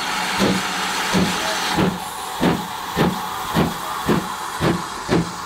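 Steam locomotive working away with regular exhaust chuffs, about two a second and gathering pace, over a hiss of steam that eases about two seconds in.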